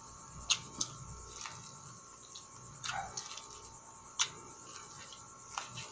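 Eating boiled sweet corn off the cob: a handful of short, sharp, crisp clicks at uneven intervals as kernels are bitten off and chewed.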